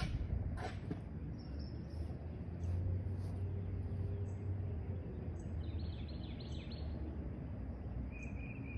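Outdoor ambience: a steady low rumble with a few short bird chirps, and a few sharp clicks in the first second. A high, steady insect trill starts near the end.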